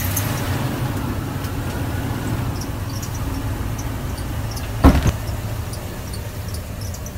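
Pickup truck engine running steadily with a low rumble that fades slightly toward the end. A sharp double thump lands about five seconds in.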